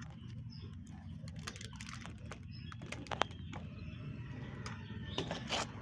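Scattered small clicks and taps of tools and metal parts being handled while a new starter solenoid is screwed onto a starter motor, over a low steady hum. The sharpest click comes about three seconds in, with a couple more near the end.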